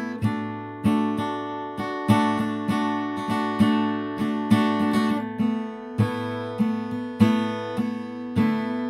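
Background acoustic guitar music: plucked and strummed chords at a steady pace, about two notes a second.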